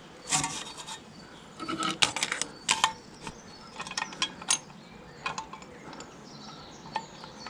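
Irregular small metallic clinks and taps as steel brake-linkage parts of a 1955 Fordson Major tractor are handled and worked into place by hand.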